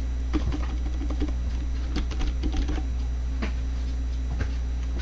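Typing on a computer keyboard: irregular keystrokes in short bunches, over a steady low hum.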